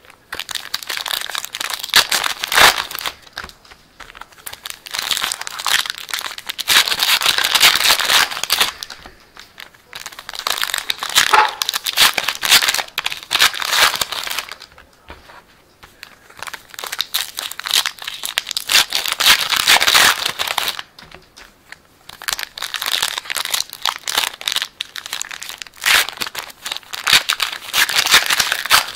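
Baseball card pack wrappers crinkling and tearing as packs are opened by hand, in bursts of several seconds with short pauses between.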